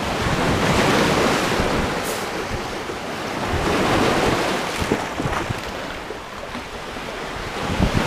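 Small sea waves washing in over flat, layered rock ledges and stones at the water's edge. They swell about a second in and again around four seconds, then ease off.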